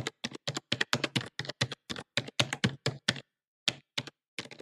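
Computer keyboard typing sound effect: a fast run of keystroke clicks, about five or six a second, breaking off about three seconds in, then a few separate clicks near the end.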